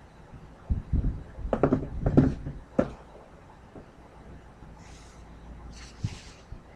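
Handling of a cardboard trading-card box and card packs: a few dull thumps about a second in, then several sharp knocks and clicks, and two short soft rustles near the end.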